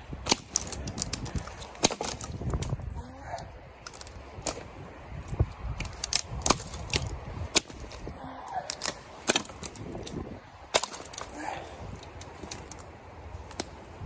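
Dry dead branches and twigs being snapped by hand: an irregular run of sharp cracks and snaps over a low rustle of brush.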